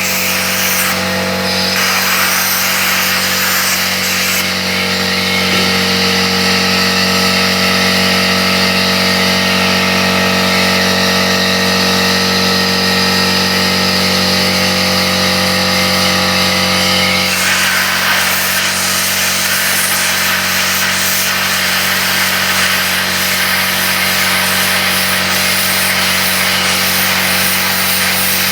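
Plasma cutter running: a loud, continuous hiss over a steady hum and several steady tones. The hiss changes character about four seconds in and again around seventeen seconds in.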